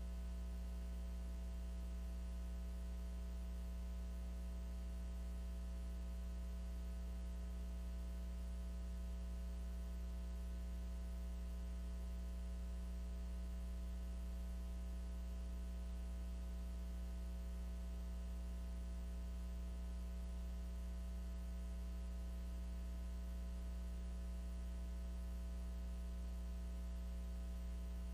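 Steady electrical mains hum with a faint buzz of higher overtones.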